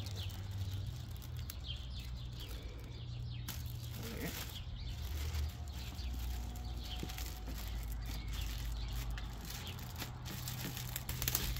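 Clear plastic wrapping bag crinkling and rustling as it is pulled off a hard plastic tackle box, with irregular crackles throughout.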